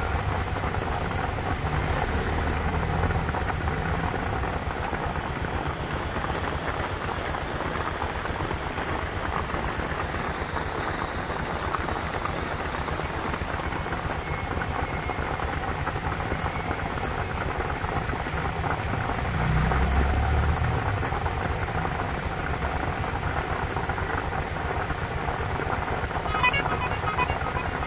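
Heavy rain pouring on a flooded street with traffic wading through: a steady hiss, with a low rumble swelling at the start and again about two-thirds of the way through. Music notes begin near the end.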